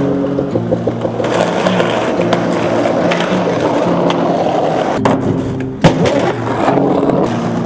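Skateboard wheels rolling over pavement, with two sharp board clacks about five and six seconds in, the second the loudest, over background music with a bass line.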